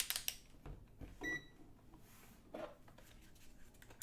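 Digital multimeter giving one short high beep a little over a second in, after a few sharp clicks at the start, as it is switched to the capacitance range.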